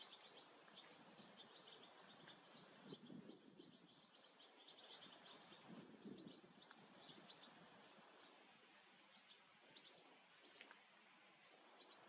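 Barn swallows twittering: a quick run of faint, high chirps, thick in the first half and thinning to scattered single chirps toward the end.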